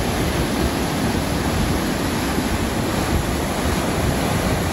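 Water rushing steadily down a concrete dam spillway channel.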